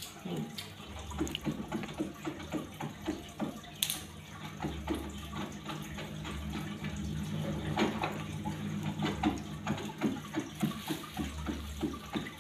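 Water running and splashing continuously, with many small irregular trickles and drips over a steady low hum.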